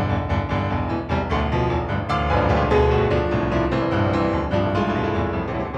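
Piano in an electroacoustic tape-music piece, playing many quick notes over held low tones.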